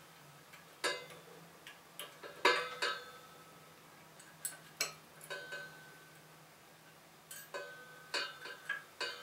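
A small metal E-ring clip clinking against the metal rod and washers as fingers work it into the rod's groove: irregular sharp metallic clicks, about a dozen, each with a brief ring, the loudest about two and a half seconds in.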